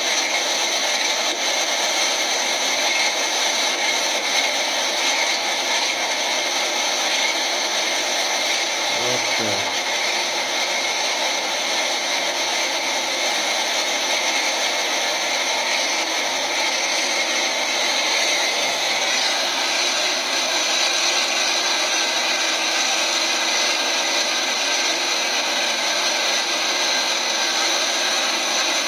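An old heavy truck's engine held at high revs in a steady whir while the truck is stuck in river gravel and its wheels spin hard enough to raise tire smoke, with rushing river water under it. The engine note shifts slightly about two-thirds of the way through.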